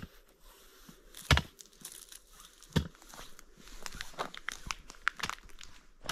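Crinkling and rustling of things being handled, with a few sharp knocks, the loudest about a second and a quarter in, and a run of small clicks later on.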